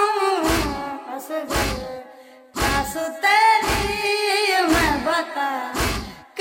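A noha, a Shia lament, sung with a steady beat of deep thumps about once a second. The singing breaks off briefly about two seconds in, then resumes over the same beat.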